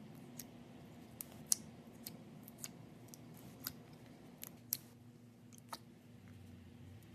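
Slime being squeezed and poked by hand, giving irregular sharp little clicks and pops, about a dozen of them, over a faint low hum.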